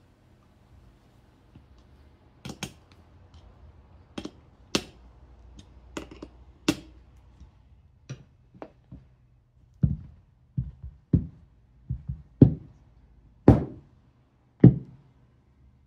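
Hand handling of a small steel plate assembly and a hand tool on a rubber bench mat: a few sharp metallic clicks about two to seven seconds in, then a run of heavier, duller knocks in the second half as the steel plates are moved and set down.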